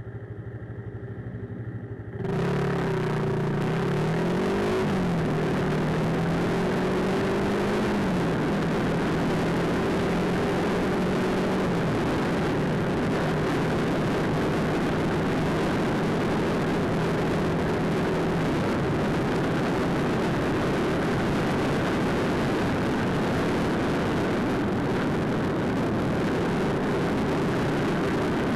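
Motorcycle ride recorded through a handlebar-mounted dash camera's microphone. A quieter steady hum for about two seconds gives way suddenly to a loud rush of wind and road noise. Over it the engine note rises and drops twice as the bike pulls away through the gears, then holds steady at cruising speed.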